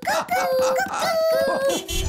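Cartoon cuckoo clock calling "cuck-oo" twice, each call a higher note dropping to a lower one, in a voice-like tone.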